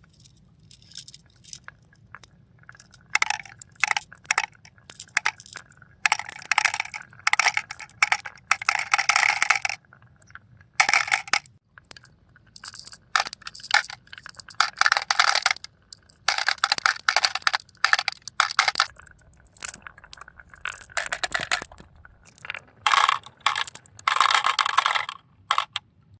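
Marbles rolling and clattering down marble run tracks, in repeated bursts of rapid clicks and rattles as they run along and drop through the course.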